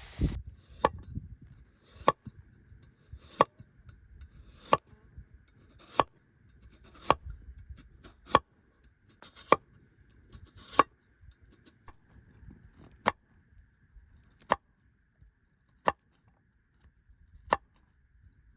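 Knife chopping food on a cutting board, one sharp stroke at a time, about one every second and a quarter, spacing out a little near the end.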